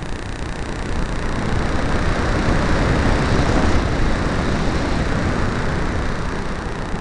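Wind noise: air rushing over an RC glider's onboard camera in flight. It swells from about a second in, peaks around the middle and eases off near the end.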